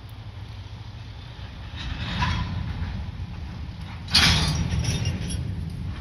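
Freight train cars standing on the track with a steady low rumble; a rattling clatter rises about two seconds in, and a sudden loud metallic jolt with rattling after it comes about four seconds in.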